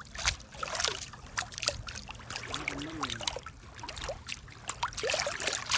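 River water splashing and lapping in quick, irregular little splashes.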